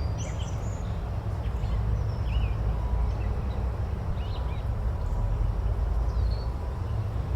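Forest ambience: scattered short bird chirps and calls over a steady low rumble.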